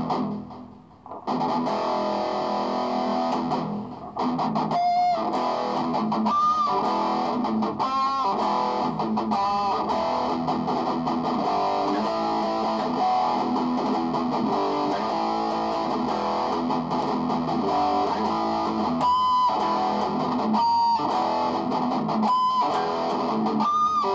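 Electric guitar played through a Boss MT-2 Metal Zone distortion and a Boss DD-3 Digital Delay pedal into a small amp: heavily distorted chords and riffs with several bent notes, fading briefly and starting again about a second in.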